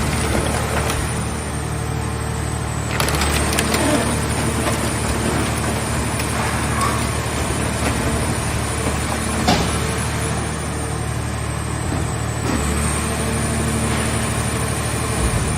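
A vehicle shell baler at work: its power unit running steadily with a low hum and a high whine that steps up and down twice, while a few sharp cracks and creaks come from a car body being crushed.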